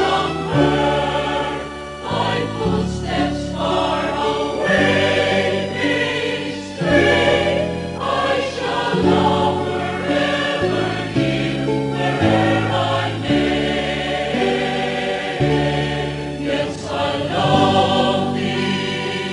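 Background music: a choir singing slow, sustained chords that change every second or two.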